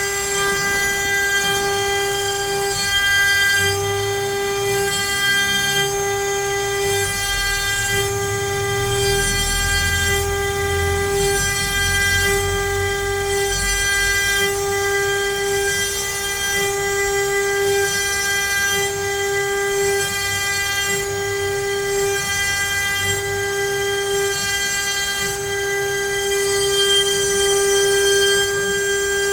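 CNC router spindle whining at a steady pitch as its bit mills letters into pine wood, the tone swelling and dipping every second or two as the cutter moves through the cuts. A low rumble sits under it from about four to fourteen seconds in.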